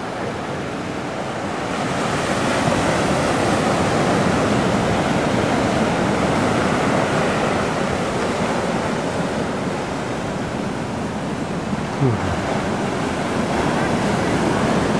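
Ocean surf breaking and washing over black lava rocks: a steady rush of white water that swells about two seconds in.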